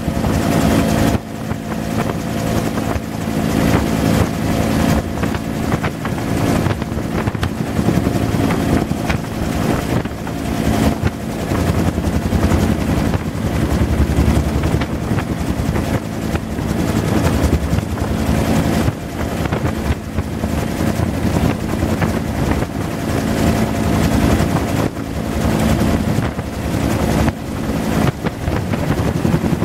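Bell UH-1 Huey helicopter in flight, heard from inside the cabin: the continuous beat of its two-blade main rotor over the steady whine of its turbine, with a few steady tones running underneath.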